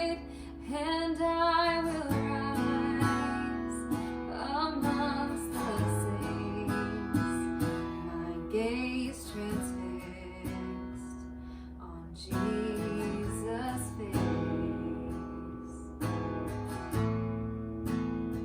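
Live worship band music led by strummed acoustic guitar with sustained chords, and a held, wavering sung note in the first two seconds.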